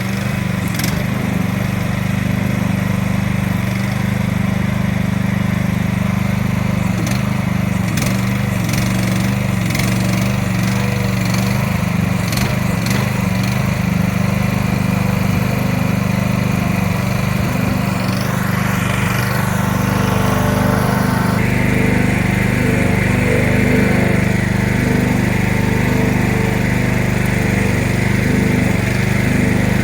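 Mini excavator's small engine running steadily under load as it pushes logs and brush into a pile, with several knocks and clanks in the first half. A brief rising-and-falling whine comes a little past halfway, after which the machine sounds busier.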